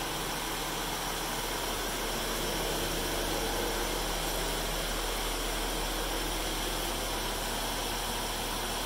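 Steady, unchanging hiss with a low hum underneath. It starts and stops abruptly.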